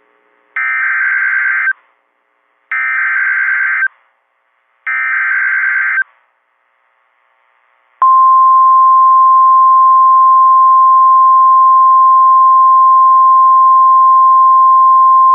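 NOAA Weather Radio emergency alert: three short buzzing bursts of SAME digital header data, each about a second long, then about eight seconds in a loud, steady single-pitch 1050 Hz warning alarm tone begins, the signal that a warning-level alert follows.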